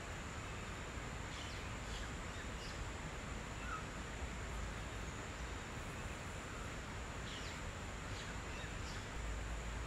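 Outdoor nature ambience: a steady hiss with a constant high insect drone, and a few short, high bird chirps scattered through.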